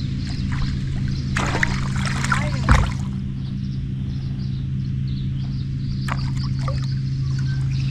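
Water splashing and trickling against a fishing kayak, loudest in a short flurry about two seconds in, over a steady low hum.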